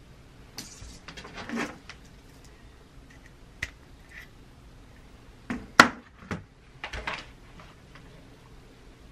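Scattered clicks and rustles of handling as a Lightning charging cable is plugged into an Apple Magic Keyboard; the loudest is a sharp click a little past halfway.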